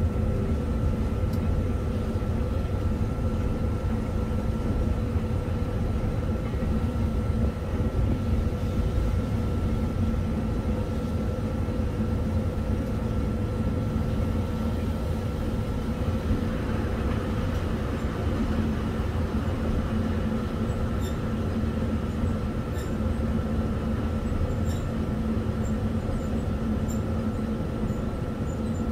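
Inside the cab of an EF63 electric locomotive on the move: a steady low rumble from the running gear, with a constant hum of several steady tones and a few light ticks in the last several seconds.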